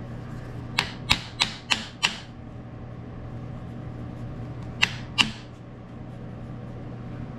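Sharp metal clicks and taps, five in quick succession and then two more a few seconds later, as a metal workpiece is worked and seated by hand in a milling-machine vise, over a steady low hum.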